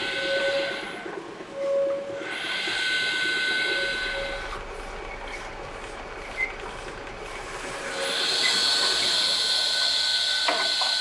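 Noodle-making machinery running: a steady mechanical whirr with a hiss and a thin high whine as crumbly dough tumbles from a mixer and feeds through dough-sheeting rollers. A few sharp clicks come near the end.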